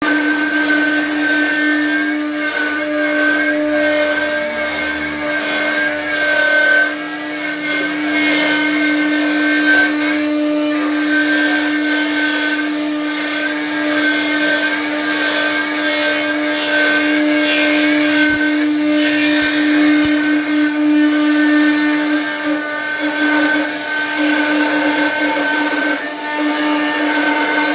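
CNC router spindle carving teak, with a steady high whine and cutting noise that rises and falls as the bit moves through the wood.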